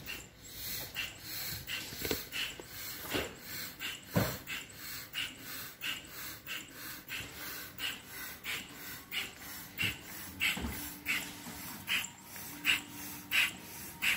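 Yellow bellows air pump pressed by hand, pushing air through its hose into an inflatable pool ring: a rhythmic puffing, about two strokes a second.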